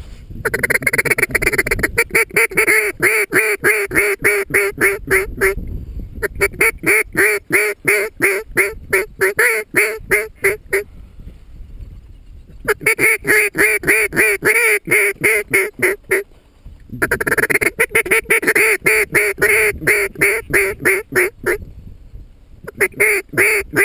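Duck quacking in fast, evenly paced runs of several seconds, with short breaks between the runs.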